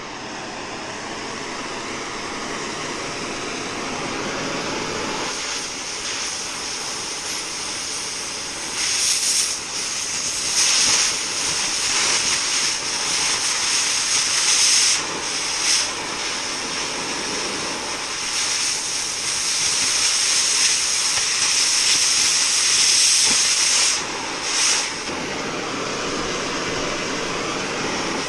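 Oxy-fuel cutting torch hissing steadily, with louder, harsher rushes of hiss several times from about a third of the way in. The longest rush lasts about six seconds. The rushes are the cutting-oxygen jet blowing through steel.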